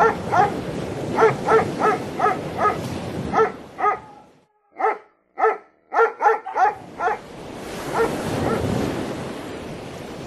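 Dog barking in quick runs of short barks, about two to three a second, that stop about seven seconds in; a steady background noise follows.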